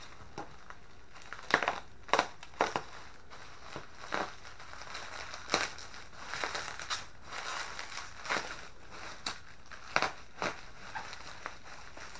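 Bubble wrap and packing tape crinkling and crackling as they are pulled and peeled away by hand, in irregular sharp crackles, loudest about two seconds in and again near ten seconds.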